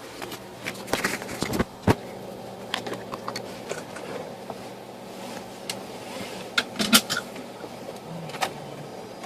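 Irregular clicks and light knocks inside a car cabin over the faint steady hum of the idling engine.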